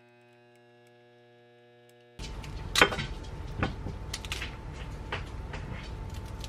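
Faint steady hum of an illy capsule espresso machine brewing into a glass. About two seconds in it gives way to a kitchen knife cutting a nectarine held in the hand: several crisp cuts, the loudest shortly after the change.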